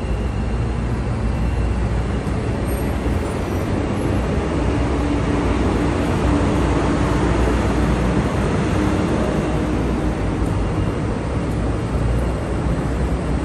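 Steady low rumble and hum of a CTA 5000-series 'L' rapid-transit train standing at the platform, with a faint steady whine from about four seconds in until near ten seconds.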